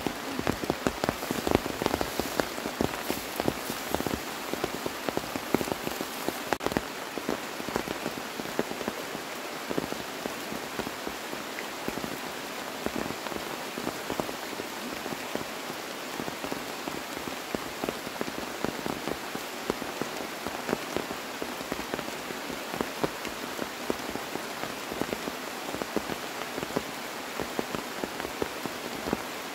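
Steady rain falling: an even, dense crackle of drops hitting surfaces, with more frequent louder hits in the first few seconds.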